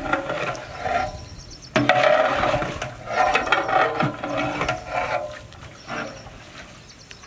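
A long metal ladle stirring and scraping chopped mutton and spices in a large metal cooking pot, in irregular strokes. It grows louder suddenly about two seconds in.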